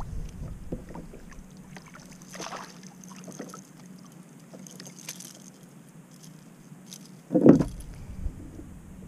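A small hooked fish is landed beside a kayak: a brief splash of water as it is lifted from the surface about two and a half seconds in, with light clicks from the rod and tackle being handled. A dull thump about seven and a half seconds in is the loudest sound.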